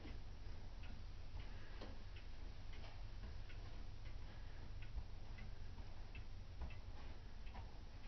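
Several antique pendulum wall clocks ticking out of step with one another, short sharp ticks coming about two a second at uneven spacing, over a low steady rumble.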